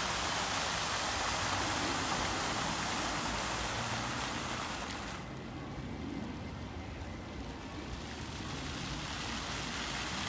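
Fountain jets splashing steadily into their pool. About halfway through, the splashing drops away as the jets shut down, then builds back up near the end as they rise again.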